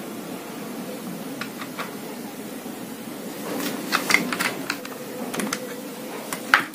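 Scattered clicks and taps of tools and small parts as an air rifle's trigger group is taken apart, over a steady low background noise. The clicks come thickest in the middle, with one sharper click near the end.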